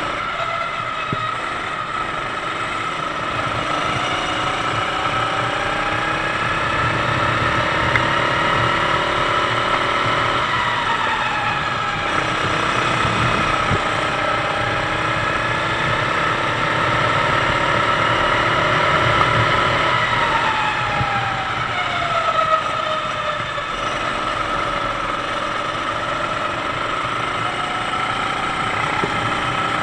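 A Sodi kart's 390cc four-stroke single-cylinder engine, heard onboard at racing speed. The revs climb steadily, drop sharply about ten seconds in, climb again, fall away over several seconds around twenty seconds in, and pick up again near the end.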